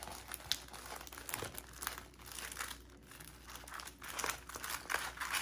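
Stiff diamond-painting canvas with its plastic cover film crinkling and crackling as it is rolled backwards to flatten it, in irregular crackles that get busier near the end.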